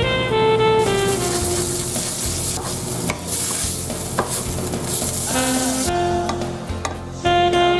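Thin slices of beef sizzling in hot oil in a nonstick frying pan, with small clicks and scrapes from a wooden spatula stirring them. Jazz saxophone music plays at the start and again near the end.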